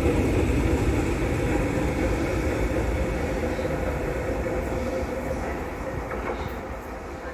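Tyne and Wear Metrocar train pulling away from the platform: steady running noise with a steady hum, fading gradually as it draws away.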